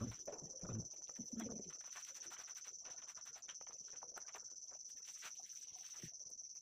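Hands pulling ripe jackfruit bulbs out of the split fruit's fibres, with faint small clicks and rustles. A steady high-pitched whine runs underneath. A few low sounds come in the first second and a half.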